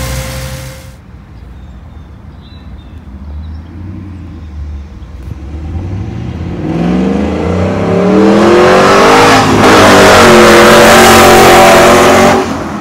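Chevy S10 pickup with a swapped 5.3 LS V8 and T56 manual gearbox accelerating hard down the road, its engine note climbing in pitch through the gears and dropping back at the shifts, loudest in the last few seconds. In the first second the same engine idles with its radiator fans running loudly, then cuts off.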